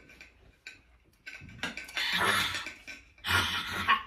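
People eating a seafood boil with their hands: scattered small clicks and handling noises, with two longer noisy bursts, one about a second and a half in and one just after three seconds.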